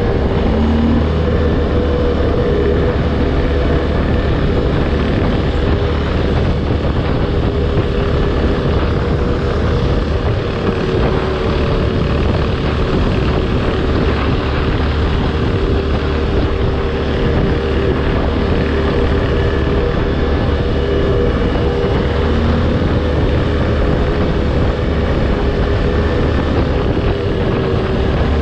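Linhai 500 Promax ATV's single-cylinder engine running steadily under way, with no large changes in revs, over a constant rush of riding noise.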